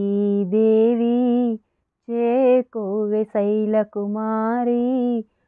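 A woman singing a devotional lullaby solo, with no instruments, in long held notes with a slight wobble. A short pause breaks the singing about one and a half seconds in.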